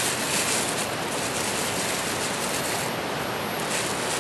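Steady rushing of stream water, with brief rustling of plastic sacking near the start and again near the end as the fish on it are handled.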